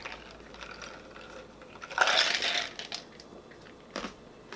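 A plastic cup of iced soda being drunk from and handled, with ice and cup clattering. There is a short, louder noisy burst about two seconds in and a click near the end.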